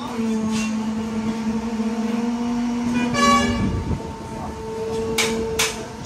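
A steady engine hum, with a short vehicle horn toot about three seconds in followed by a low rumble, and two sharp clicks near the end.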